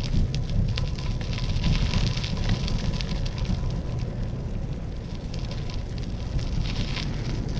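Wind rumbling on the microphone, with a dense crackle over it.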